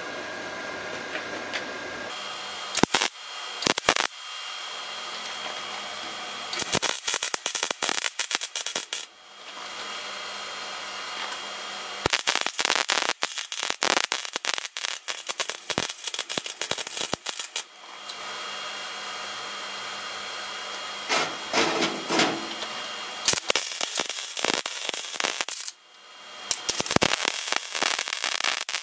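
MIG welding arc crackling and sizzling in several bursts of one to five seconds, stopping and starting, as the lid is welded onto a steel canister packed with scrap. A steady hum fills the pauses between the welds.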